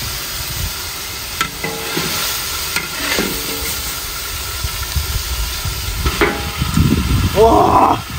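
Hot oil sizzling in a large wok while a long metal ladle scrapes and clinks against the pan, scooping out fried food. The noise gets louder near the end.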